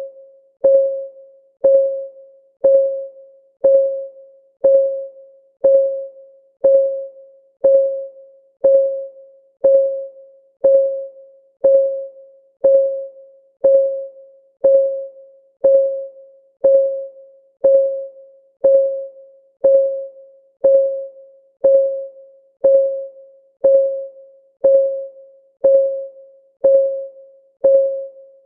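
Countdown timer's ticking-clock sound: a short pitched tick about once a second, each fading quickly, evenly spaced.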